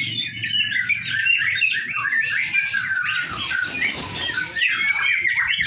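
White-rumped shamas (murai batu) singing a fast, varied run of chirps and whistles; near the end one note rises into a rapid trill. A low background murmur runs underneath.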